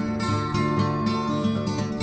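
Background music with plucked acoustic guitar, the notes struck in a steady rhythm.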